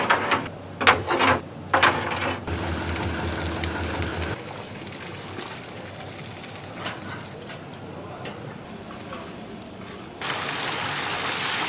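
A mix of sounds: sharp knocks and voices in the first two seconds, a low motor hum for about two seconds, then an even hiss that starts suddenly near the end.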